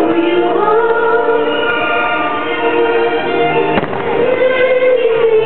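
Orchestral fireworks-show music playing in held chords, with one sharp firework bang about four seconds in.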